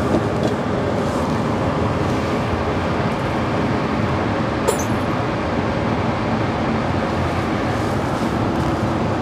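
Steady rumbling background noise of an indoor shooting range's machinery and moving air, with one light click about halfway through.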